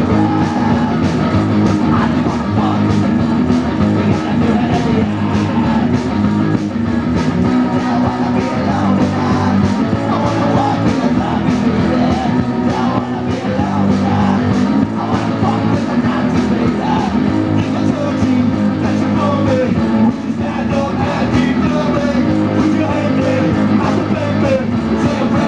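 Live garage-punk rock band playing: electric guitars, a steady drum beat and a man singing into the microphone, recorded loud from the audience.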